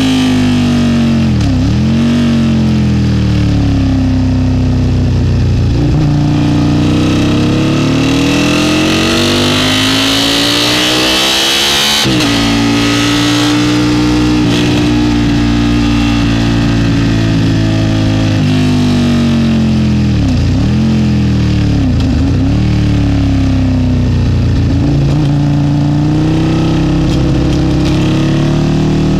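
Aprilia RSV sportbike engine heard from on board at full track speed, revs climbing and falling through the gears. The engine note breaks abruptly once near the middle and dips sharply and recovers several times later on, as with quick gear changes. Wind rush is mixed in at the fastest stretch.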